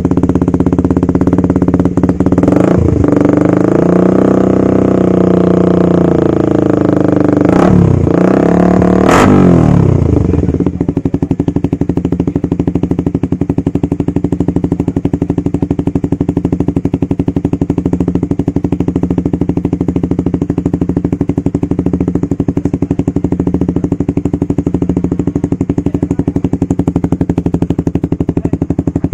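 Suzuki GSX-R150's single-cylinder engine through an aftermarket R9 Racing slip-on exhaust, revved for about the first ten seconds, with the revs dropping and snapping back a few times and a couple of sharp cracks. It then settles into a steady idle.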